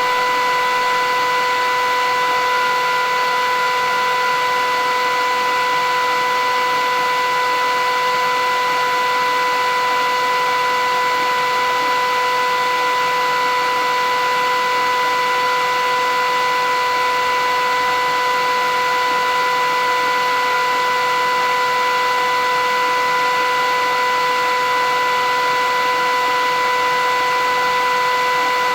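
Philips 8000 Series vacuum cleaner running steadily: an even rush of air under a constant, unwavering whine.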